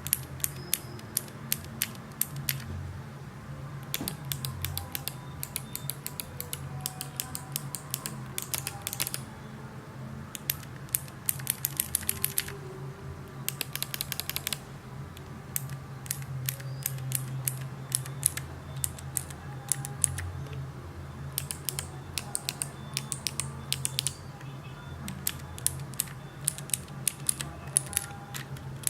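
Clicky mechanical keyboard switches, Kailh BOX clicky and Cherry MX Green, pressed and released repeatedly. They give runs of sharp clicks several times a second, broken by short pauses, over a faint steady low hum.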